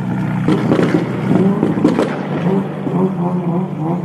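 Ferrari V8 running low and steady as the car creeps past at close range, with two sharp cracks about a second and two seconds in. Crowd voices underneath.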